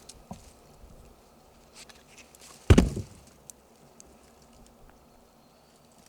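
A single loud, sudden thump about three seconds in, against a quiet outdoor background with faint scattered ticks.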